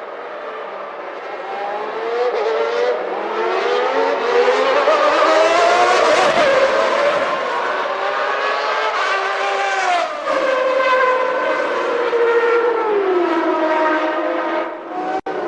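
Several 1991 Formula One cars' high-revving racing engines running on track. Their pitch climbs over the first six seconds, drops sharply about ten seconds in and falls again near the end as they shift and slow. The sound breaks off abruptly just before the end.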